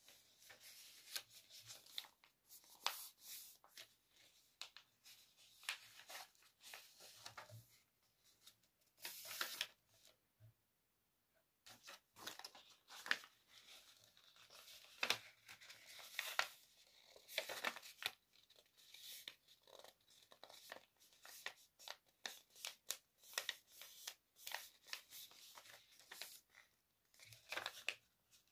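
A sheet of A4 paper being folded into a paper airplane: crisp crinkles, rustles and scraping as creases are pressed flat and fingers run along the folds, with a short pause about ten seconds in.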